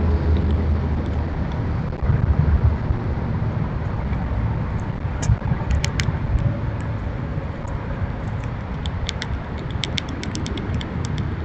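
A steady low rumble, with a run of short sharp clicks starting about halfway through and coming thickest near the end: a squirrel close to the microphone cracking and chewing seeds.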